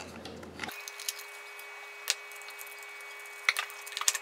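A few light, sharp clicks and taps as hands handle a small wire connector and fit it into a slot in a project box, over a faint steady hum.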